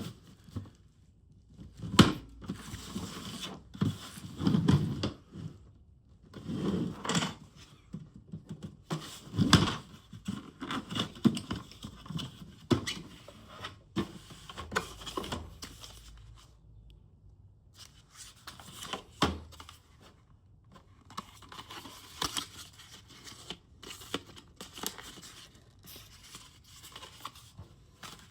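A box and its packaging being unpacked by hand: irregular stretches of handling noise with several sharp clicks and knocks.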